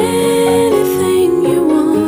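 Background music: a gentle, soft song with held melody notes.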